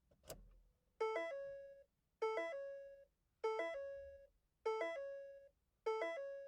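Electronic chime sound effect: a quick run of a few notes ending on a held tone that fades, repeated five times about a second apart.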